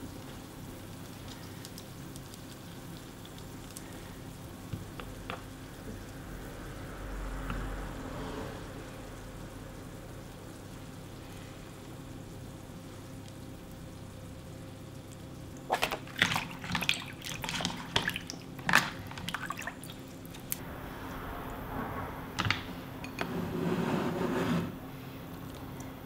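Wet, sticky handling sounds of softened rice paper and a vegetable filling being worked by hand as rice paper rolls are wrapped. A run of sharp wet clicks and crackles comes about two-thirds of the way in, and softer rustling follows near the end.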